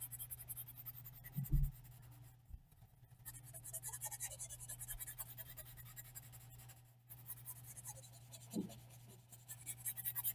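Pencil graphite scratching on paper: the side of a wooden pencil shading in quick back-and-forth strokes, in three runs broken by two short pauses, over a steady low hum.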